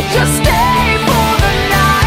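Background rock music with a steady beat and guitar.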